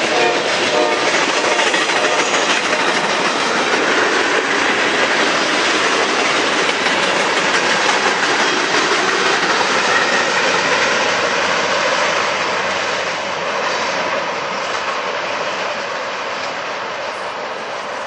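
Freight train cars rolling past with steady wheel clatter on the rails, while the locomotive's horn, sounding far up the line, cuts off about a second in. The rolling noise eases off in the last few seconds as the end of the train goes by and draws away.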